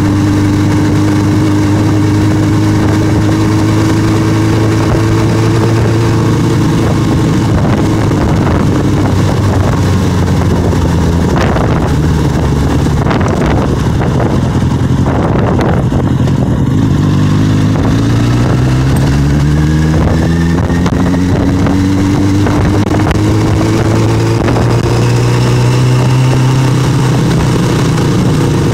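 Street motorcycle engine running under way. Its pitch climbs as it accelerates at first, turns rougher and windier in the middle, then climbs again through the revs in the second half, over a rush of wind noise.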